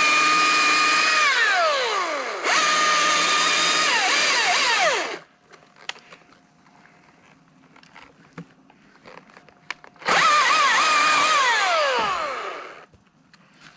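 Battery-powered chainsaw's electric motor run at full speed three times, twice back to back and again about ten seconds in. Each time the trigger is let go it spins down to a stop with a falling whine, with no idle in between.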